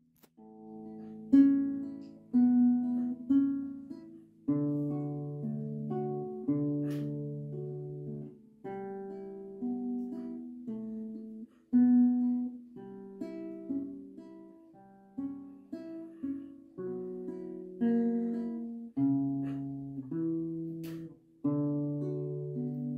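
Acoustic guitar played fingerstyle: plucked melody notes and bass notes that ring and fade, with a new note or chord about once a second.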